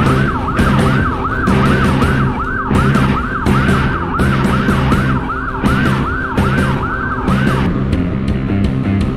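Police siren in a fast yelp, its pitch swooping up and down about two to three times a second, cutting off near the end, over background music.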